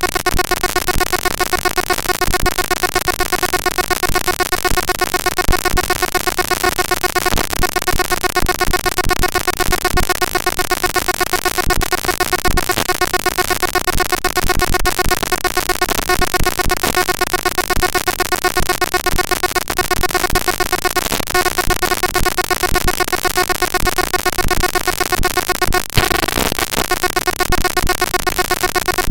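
Harsh digital noise made by playing network packet-capture text from tshark as raw float audio: a dense, steady buzz with a stack of fixed tones running through it, briefly disrupted about 26 seconds in.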